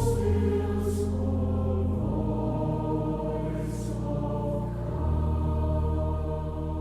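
Choir singing a slow hymn in long held chords over a low sustained accompaniment, the chord changing about two and again about five seconds in.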